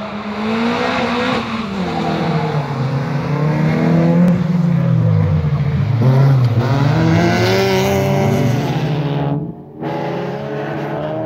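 Racing cars' engines revving hard on a gravel track, the pitch climbing and falling again and again with throttle and gear changes. The sound dips briefly near the end, then picks up again.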